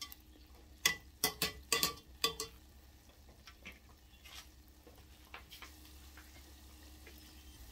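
A utensil clicking and tapping against a pan of frying biscuit dumplings: about six sharp taps in the first two and a half seconds, then a few fainter ones over a faint low hum.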